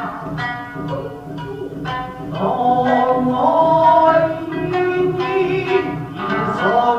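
Music for Japanese classical dance: a voice singing long, wavering, gliding notes over plucked string accompaniment.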